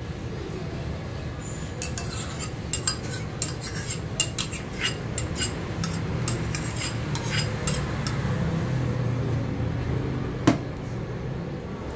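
Metal spoon scraping and clinking against a bowl and a stainless steel pan as tomato sauce is scraped out of the bowl: a run of quick clinks over several seconds, then one louder knock near the end. A steady low hum runs underneath.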